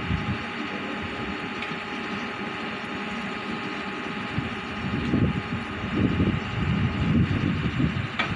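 A truck-mounted borewell drilling rig running steadily, its engine and air compressor making a constant mechanical drone with a few held tones. From about halfway through, irregular low rumbling surges rise over it.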